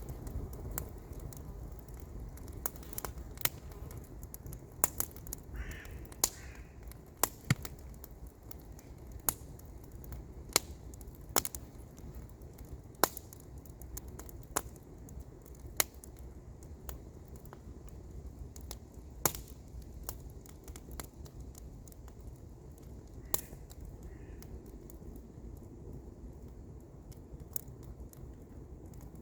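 Wood campfire burning, with sharp irregular crackles and pops over a steady low rumble.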